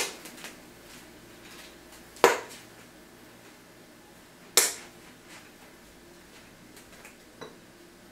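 Quiet room tone broken by three short sharp clicks about two seconds apart, the last one faintest.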